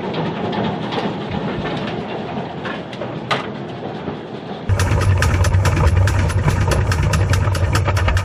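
Steam locomotive running on the line, a steady rumble with scattered clicks of wheels and rails. About two-thirds of the way through it switches abruptly to a louder low drone with rapid even beats, about six a second.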